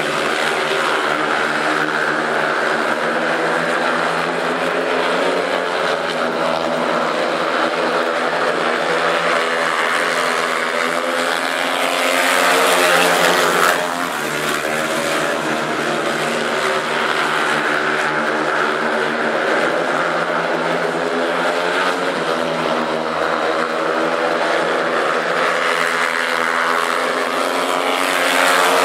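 Four speedway motorcycles' 500 cc single-cylinder methanol engines racing flat out, their pitch rising and falling through the bends. The sound swells as the pack passes close about twelve seconds in, drops suddenly, and swells again near the end.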